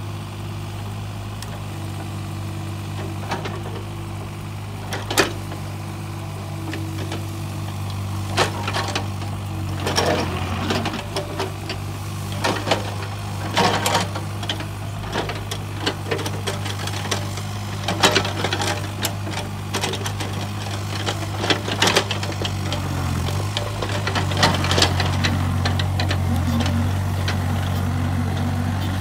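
Takeuchi TB135 mini excavator's diesel engine running steadily under working load, with repeated sharp knocks and snaps of wood as its bucket and thumb grab and break up brush and stumps.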